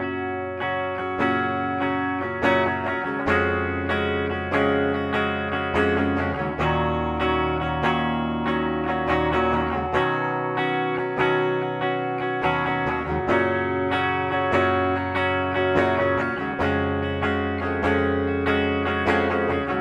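Gibson Les Paul Studio 2015 electric guitar played through its bridge pickup with a clean tone: chords and single notes picked in a steady rhythm, letting notes ring.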